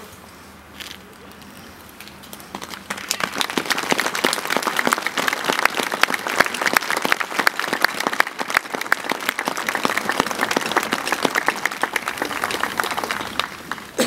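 A large crowd clapping, starting about two and a half seconds in and dying away near the end.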